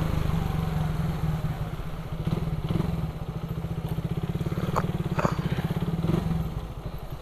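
Suzuki Raider 150 carbureted motorcycle's single-cylinder four-stroke engine running at low revs while riding slowly, its exhaust pulsing evenly; it eases off and turns quieter about six seconds in.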